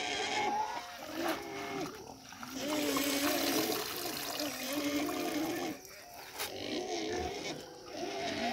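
Water sloshing in a plastic bucket as hands wash leafy greens, under a string of high, wavering calls that pause about two seconds in and again near six seconds.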